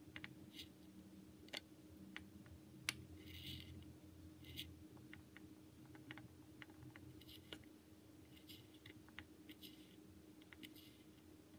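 Miniature kitchen knife cutting through fruit on a tiny wooden cutting board: faint, irregular clicks and short scrapes as the blade goes through the fruit and taps the board, over a faint steady hum.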